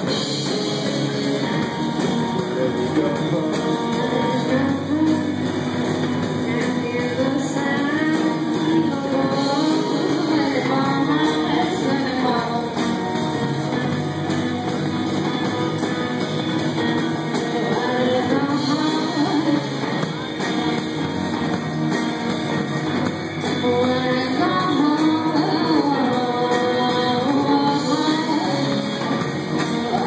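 Live band playing: a woman singing lead over electric guitars and a drum kit.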